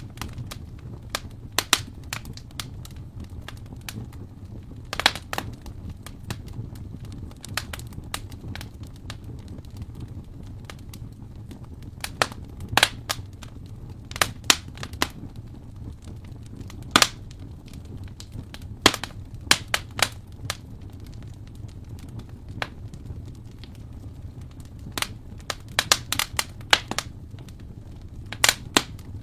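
Wood fire in an open fireplace crackling: irregular sharp pops and snaps, some coming in quick clusters, over a steady low background sound.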